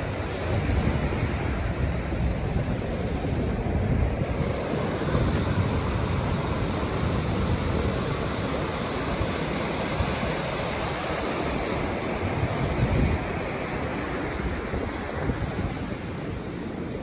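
Ocean surf washing in a continuous rush, with wind buffeting the microphone.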